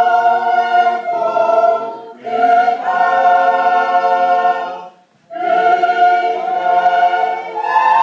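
A choir of men and women singing unaccompanied in long held chords, with short breaks for breath about two seconds in and about five seconds in, and a change of chord near the end.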